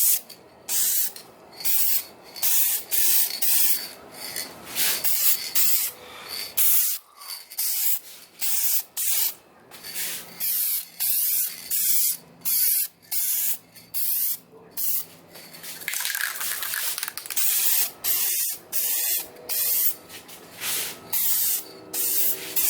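Aerosol spray can of Dupli-Color plastic adhesion promoter spraying in many short hissing bursts, roughly one a second with brief gaps between, laying a light coat on plastic truck trim.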